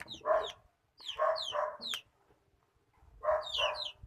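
Bird calls in bursts: clusters of short, high, falling chirps over lower clucking notes, about three times with quiet gaps between.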